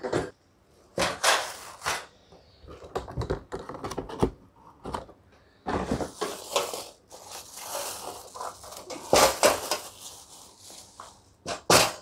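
Plastic wrapping rustling and crinkling, with scattered knocks and thunks, as a folding iron charcoal barbecue grill is taken out of its cardboard box and unwrapped.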